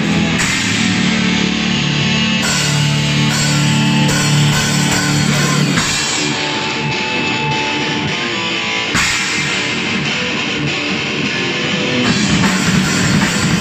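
Live heavy metal band playing electric guitars, bass guitar and drum kit. The riff changes a few times, about six, nine and twelve seconds in.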